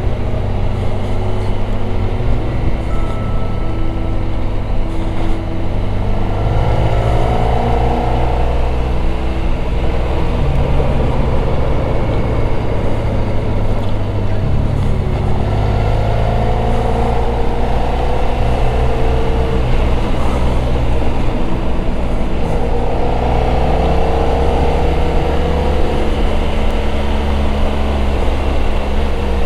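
Motorcycle engine under way, pulling up through the gears: three times its note sweeps upward, with shifts between them, over a steady rush of wind.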